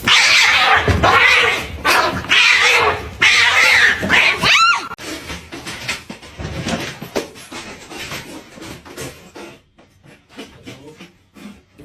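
A cat caterwauling in several loud, harsh bursts over the first five seconds, the last of them a wavering wail. After that come quieter scattered clicks.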